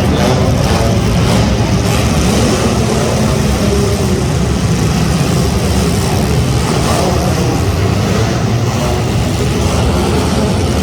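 Engines of front-wheel-drive hobo stock race cars running steadily and loudly under racing, with no single clear rev rising or falling above the din.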